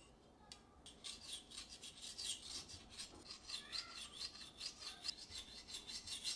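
Serrated bread knife sawing horizontally through a vanilla genoise sponge cake in quick back-and-forth strokes, several a second, starting about a second in.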